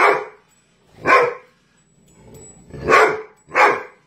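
A dog barking four times, the last two close together: alarm barks at a strange object that frightens it.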